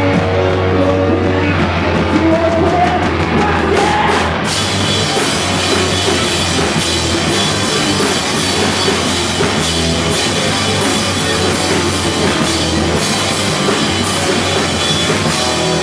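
Grunge band playing live, rough and loud: distorted guitars and bass, with the drum kit coming in hard on crashing cymbals about four seconds in.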